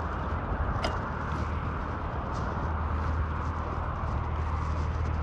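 Steady rushing of wind on the microphone and tyre noise from a bicycle being ridden, with a light click about a second in.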